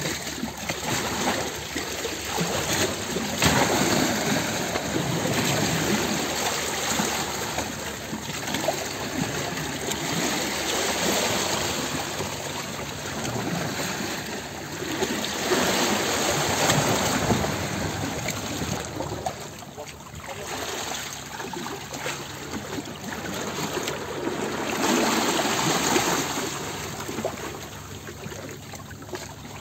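Moving water splashing and rushing, an even noise that swells and fades every few seconds, with a faint low steady hum in the last third.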